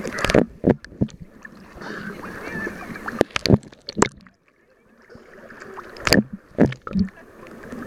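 Small sea waves sloshing and splashing against a camera held at the water surface, with several sharp splashes. About four seconds in, the sound turns muffled and much quieter for a moment as the camera dips under the water.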